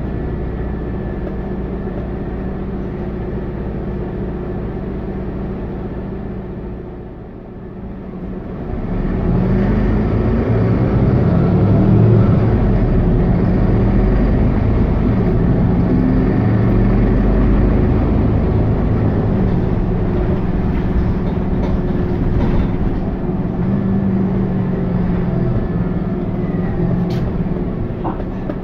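Mercedes-Benz O530G Citaro C2 articulated bus heard from inside while driving: the diesel engine and Voith automatic gearbox run steadily, ease off about seven seconds in, then pull harder again with the pitch rising and falling through gear changes.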